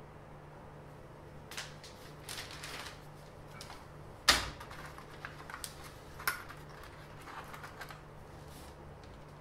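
A flexible ruler being handled and laid down on paper on a workbench: scattered rustles and light clicks, with one sharp knock about four seconds in and a smaller one about two seconds later, over a faint steady hum.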